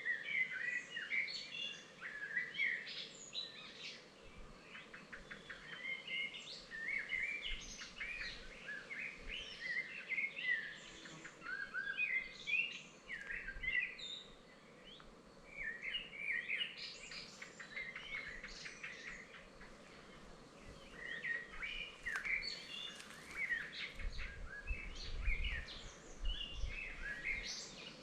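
Several songbirds singing and calling over one another, short chirps and trills following each other without a break. A brief low rumble comes in near the end.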